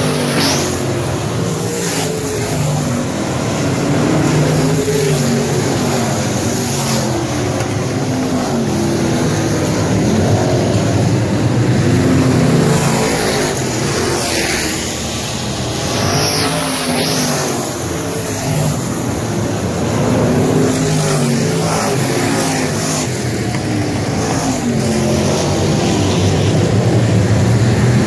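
Several street stock race cars running flat out on a dirt oval, their engine notes rising and falling as the pack passes close by and accelerates out of the turn.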